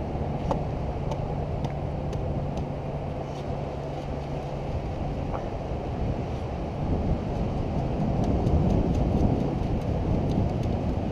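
Wind rumbling on the microphone over beach surf, with scattered faint clicks of wet sand and shell grit being shaken through a metal mesh sand scoop.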